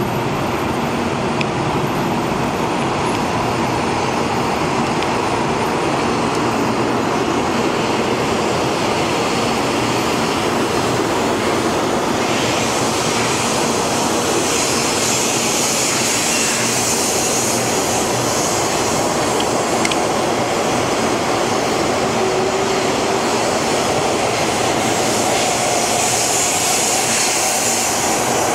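Taiwan High Speed Rail 700T high-speed electric train running past along a station platform: a steady rumble and hiss of wheels and running gear, the high hiss growing stronger about halfway through.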